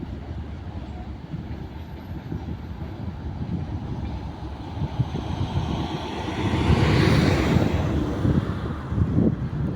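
Freight train rolling past: a steady low rumble of wagons on the rails, swelling to a louder rush about seven seconds in, with gusts of wind on the microphone near the end.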